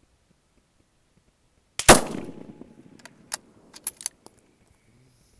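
A single rifle shot from a Stevens 200 bolt-action in .223, its report dying away over about half a second. Roughly a second later come several short, sharp metallic clicks as the bolt is worked.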